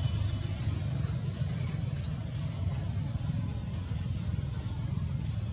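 Steady low rumble of outdoor background noise, even in level throughout, with no monkey calls.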